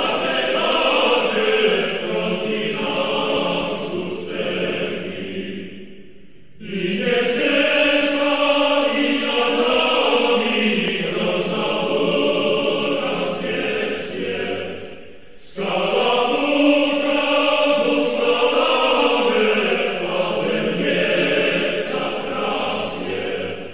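Background choral music: a choir singing a slow, chant-like song in long phrases, with short breaks about six and fifteen seconds in.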